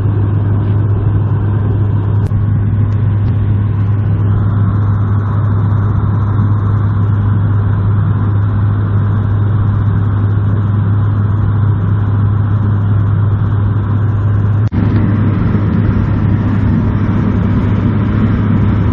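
Steady cabin drone of a Bombardier Q400 turboprop in flight on one engine, the other shut down: a strong, constant low propeller hum over a rushing noise. About 15 seconds in there is a brief dropout, after which the lower rushing is a little louder.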